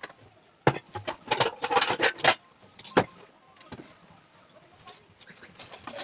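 A quick run of sharp knocks and clatters from hand tools handled against a wooden stool and a plastic pot, then one more knock about three seconds in and fainter clicks after.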